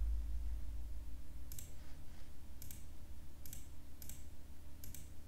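Computer mouse buttons clicking, about half a dozen single clicks spaced roughly a second apart, over a steady low hum.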